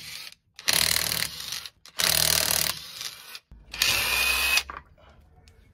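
Parkside 20 V cordless impact wrench hammering in reverse on a car's wheel bolts, in bursts about a second long: the end of one at the start, then three more with short pauses between, undoing the bolts to take the wheel off.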